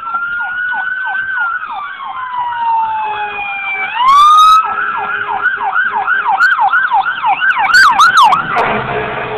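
Emergency vehicle sirens sounding together, one in a slow rising-and-falling wail and another in a fast repeating yelp. A loud horn blast comes about four seconds in, and short horn blasts follow around eight seconds. Near the end a louder rush of passing vehicle noise comes in.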